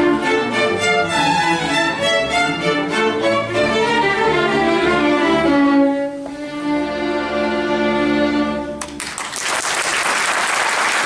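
Chamber string orchestra of violins and cellos playing the closing bars of a piece, settling into one long held final chord. About nine seconds in, the audience breaks into applause.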